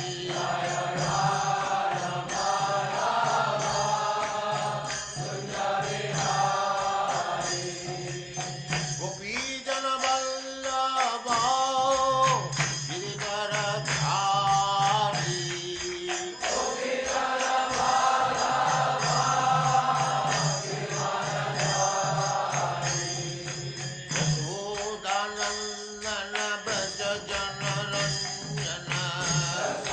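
Devotional mantra chanting set to music: a voice singing long, sliding held notes in phrases several seconds long.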